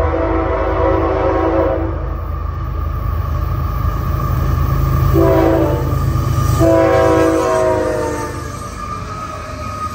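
Air horn of CSX ES44AH locomotive 815 sounding three chords: a long blast ending about two seconds in, a short one around five seconds, and a long one that drops slightly in pitch as the locomotive passes. Under the horn runs the steady rumble of the lead unit's GE GEVO V12 diesel and the train approaching.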